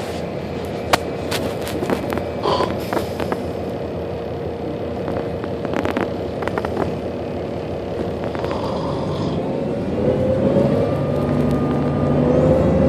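City bus running, heard from inside the cabin: a steady engine hum with scattered rattles and clicks. From about two-thirds of the way through, a whine grows louder and rises slightly as the bus speeds up.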